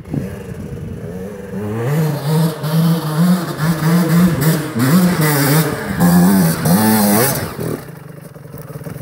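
Dirt bike engine revving hard in repeated surges, pitch rising and falling, as the rear wheel scrapes for grip on a steep, icy slope. It climbs to a high rev about seven seconds in, then drops back to a lower, steady run.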